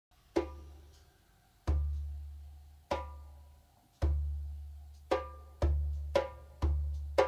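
Percussion music: single struck hits that ring and fade, each with a deep low note beneath it, first about a second apart and then coming faster toward the end.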